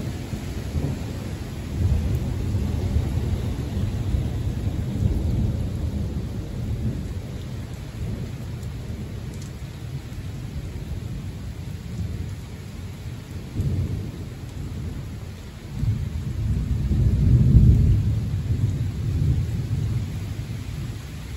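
Thunder rumbling in long rolls over steady rain. One roll runs through the first several seconds and dies down, then a louder one builds about sixteen seconds in and peaks a couple of seconds later.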